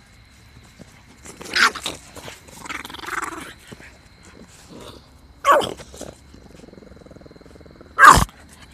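Pit bull vocalizing close to the microphone in four short, loud bursts a second or two apart, the last the loudest.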